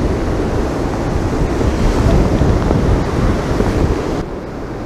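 Gusty wind buffeting the microphone, a loud, deep rumble that eases abruptly near the end.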